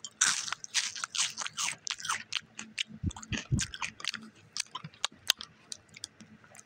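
Someone biting and chewing crunchy wasabi-flavoured shrimp chips, a quick run of crisp crunches, with a few duller thumps about three seconds in.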